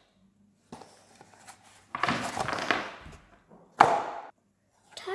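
Cardboard packaging being handled: rustling and scraping for about a second, then a short, loud knock just before four seconds in.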